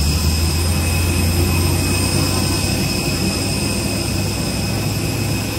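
Steady drone of a parked jet airliner at the gate, a low hum with a thin, steady high whine over it, heard through the jet bridge glass.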